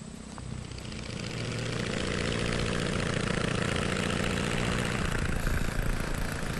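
Piston engine and propeller of an early aeroplane running, growing louder over the first two seconds and then holding a steady drone.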